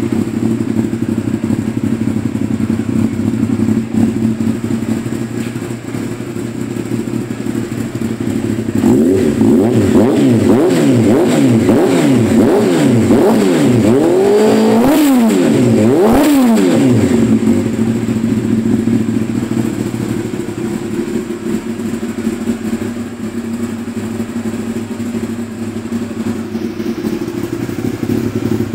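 1992 Honda CBR600F's inline-four engine breathing through a full Termignoni exhaust with a carbon-fibre silencer, idling steadily. From about nine to seventeen seconds in it is revved in a quick run of throttle blips, the last two rising highest, then it settles back to idle.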